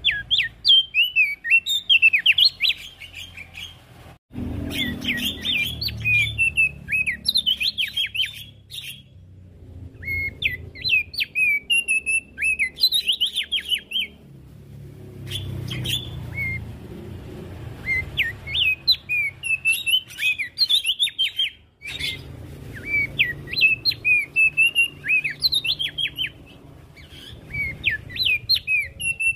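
An opior jambul (Javan grey-throated white-eye) singing in fast, chattering phrases of high, sharply rising and falling chirps, each run lasting a few seconds with short pauses between. The song breaks off abruptly twice and resumes, over a faint low hum.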